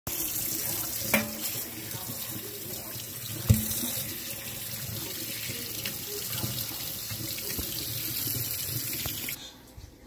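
Kitchen faucet running into a stainless steel sink as tomatillos are rinsed under the stream, a steady splashing hiss. Two sharp knocks sound, about a second in and again at three and a half seconds, the second the loudest. The water sound cuts off suddenly shortly before the end.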